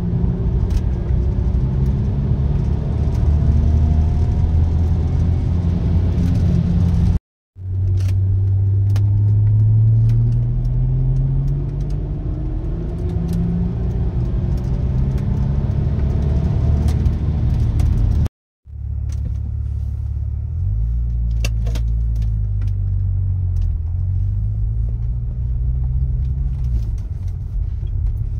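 Audi 2.7 litre twin-turbo V6 heard from inside the cabin while driving, with road noise. It pulls at mid revs with the engine pitch rising, then runs at low revs near the end as the car slows. The sound cuts out abruptly twice for a moment.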